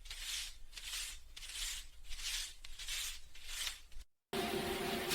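Paper banknotes rustling as they are handled, in a steady rhythm of about three swishes every two seconds. About four seconds in, the sound cuts out briefly and is replaced by a steady mechanical hum with a hiss.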